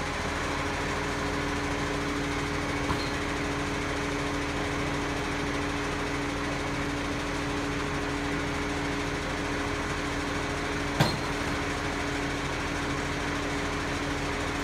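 Garbage truck's engine running steadily, with a short sharp knock about three seconds in and a louder one about eleven seconds in.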